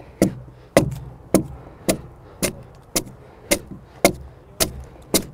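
A broad hewing axe striking a dry log wall in a steady rhythm, about two chops a second, each a sharp wooden knock, as the sawn surface is hewn away in short downward strokes.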